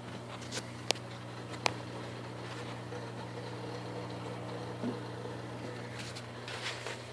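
Steady low hum of aquarium equipment running, with a few sharp clicks in the first two seconds and a brief hiss near the end.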